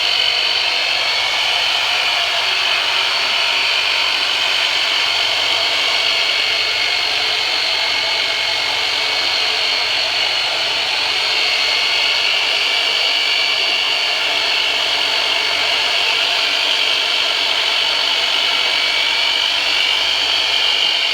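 Handheld electric massage tool running continuously, a steady high-pitched whir that wavers slightly near the end.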